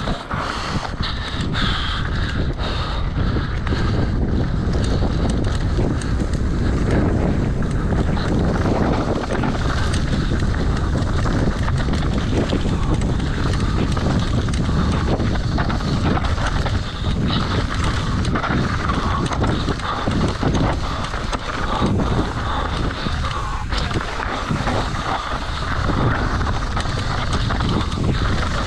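Wind rushing over a mountain bike rider's camera microphone, with a steady low rumble and constant short rattles and knocks from tyres and bike on a rough trail.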